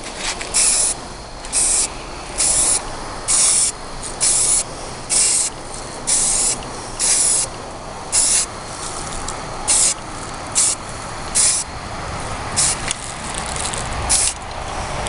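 Aerosol spray-paint can spraying in about fourteen short hissing bursts, roughly one a second, as a patterned coat is laid over an air rifle barrel.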